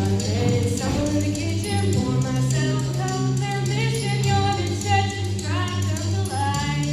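Show choir performance music: instrumental backing with held bass notes under a sung melody line.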